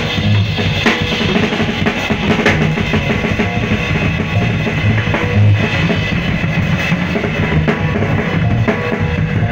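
Drum kit played in a solo: dense bass drum and snare strokes with occasional cymbal crashes.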